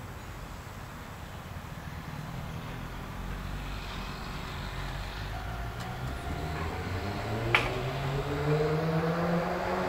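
Electric train accelerating, its motors whining in a tone that rises steadily in pitch and grows louder. A single sharp click about three quarters of the way through.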